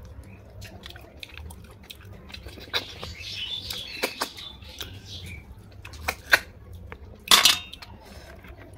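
Snails being eaten from the shell: a hissing slurp as the meat is sucked out, amid small clicks of snail shells against a plate. The loudest sound is a sharp clatter of shell on plate about seven seconds in.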